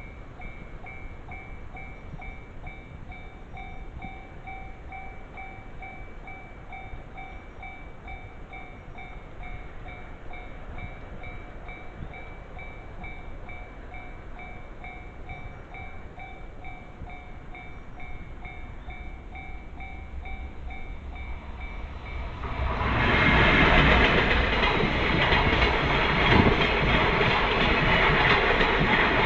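Railway level-crossing warning bell ringing in a steady repeating pattern, then a JR Sanyo Main Line train passing through the crossing, loud, from about three-quarters of the way in and drowning out the bell.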